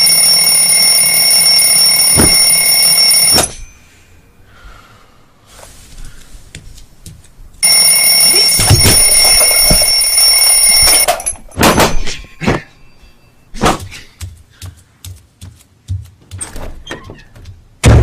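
Alarm clock ringing with a high, steady ring that stops after about three and a half seconds, then rings again about seven and a half seconds in for about three more seconds. A run of separate knocks and clatters follows, ending with one loud knock.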